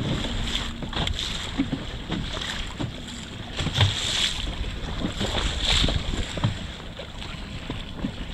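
Wind buffeting the microphone over choppy sea, with water splashing and slapping in short irregular bursts.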